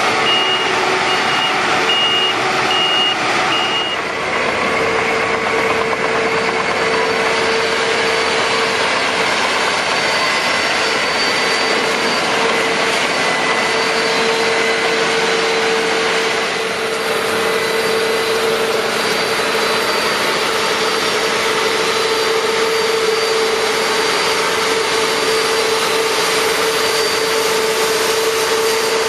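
Combine harvester running loudly and steadily, with a steady whine over the machine noise. A reversing alarm beeps evenly for about the first four seconds, then stops.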